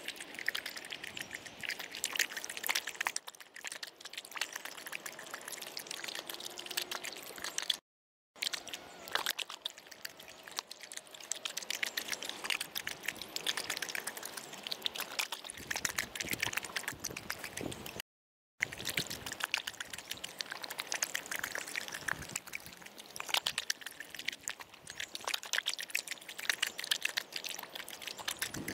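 Yellow Labrador retriever lapping water and fishing food pieces out of a rubber tub of water: rapid splashing and dripping, broken twice by a moment of silence.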